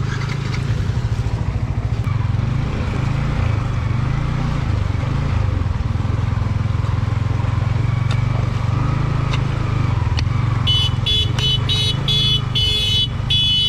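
Motorcycle engine running steadily. From about three seconds before the end, a vehicle horn beeps in a rapid string of short honks.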